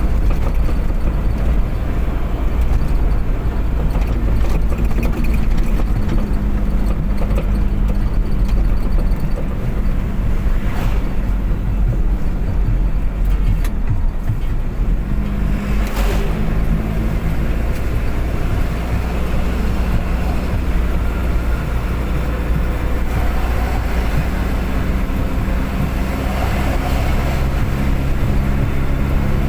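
Car driving at speed: steady engine and road rumble, with the engine note shifting in pitch a few times. A short sharp click about sixteen seconds in.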